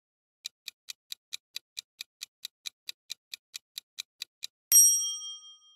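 Quiz countdown-timer sound effect: evenly spaced clock-like ticks, about four and a half a second, then a single loud bell-like ding near the end that rings out and fades.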